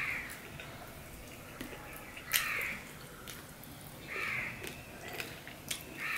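Fingers mixing rice and fish curry on a steel plate, with soft squishing and small clicks, while a crow caws several times, about every two seconds.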